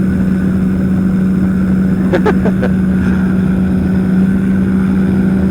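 Powered parachute's engine and propeller running steadily in flight: an even drone with a strong, constant hum. About two seconds in, a brief voice-like sound breaks over it.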